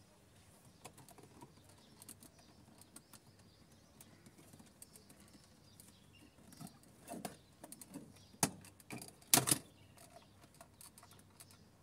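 Plastic trim-removal tool prying at the shift-lever trim panel of a 2011 Toyota RAV4's centre console: scattered light plastic clicks and taps, then a few louder snaps in the second half as the panel's clips are worked loose, the loudest about nine seconds in.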